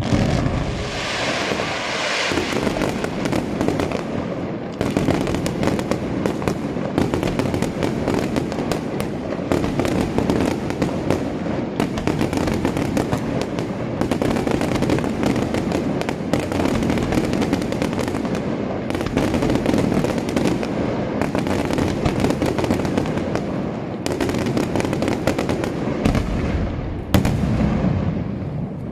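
Daytime aerial fireworks display: a dense, continuous barrage of shell bursts, bangs and crackle, with a hissing shower in the first couple of seconds, dying away at the very end.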